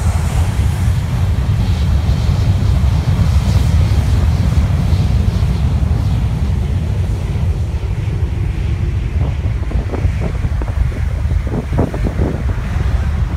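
Jet blast from an airliner's engines sweeping over the beach and buffeting the microphone: a loud, steady wind rumble that eases a little in the second half.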